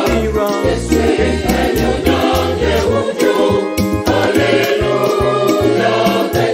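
Mixed choir singing a Ghanaian highlife medley over live band accompaniment, with a bass line and a steady percussive beat.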